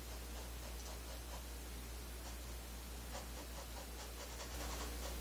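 Faint scratching of a paintbrush working oil paint over canvas in short, irregular strokes, a few a second and busier in the second half, over a low steady hum.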